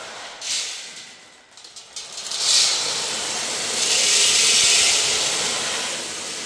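Green coffee beans pouring into a roaster's hopper, a continuous rushing rattle that swells about two and a half seconds in and again around four seconds.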